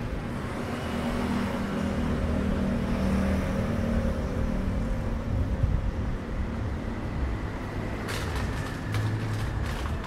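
City street traffic, with a motor vehicle's engine running close by. A few light clicks or knocks come near the end.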